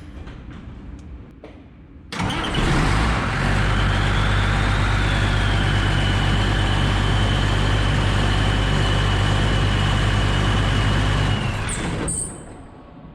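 A motor-driven machine starts suddenly about two seconds in and runs steadily for about nine seconds, with a low hum and a high whine, then stops abruptly.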